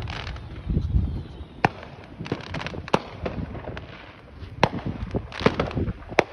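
Aerial fireworks going off: a string of sharp bangs and smaller pops at irregular intervals, the strongest about a second and a half, three, four and a half, and six seconds in.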